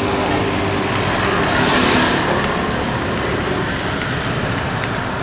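Road traffic passing close by: a vehicle engine hums at the start, and a swell of passing-vehicle noise comes about two seconds in over a steady traffic hiss.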